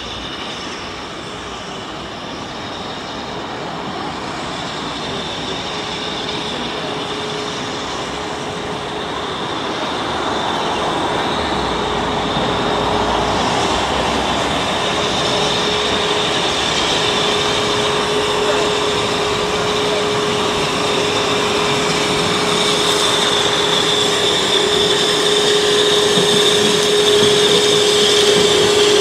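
LSWR M7 class 0-4-4 tank steam locomotive approaching, its running growing steadily louder. A steady whine sounds over it from about six seconds in.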